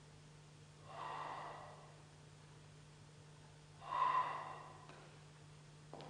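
Two breathy air-sound blows on a flute, mostly wind noise with only a faint pitch, each about a second long; the second, about four seconds in, is louder. A steady low electrical hum runs underneath.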